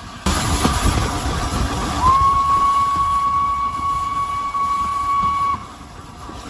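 Steam locomotive whistle: a sudden rush of hissing steam and rumble, then a single steady whistle note held for about three and a half seconds, sliding up into pitch as it opens and cutting off sharply.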